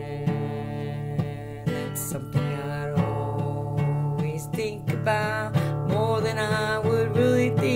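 Acoustic guitar strummed and picked slowly while a woman sings, her voice louder in the second half.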